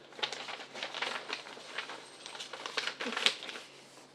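Crinkling and rustling of craft-kit packaging being handled, a run of irregular crackles with the loudest about three seconds in.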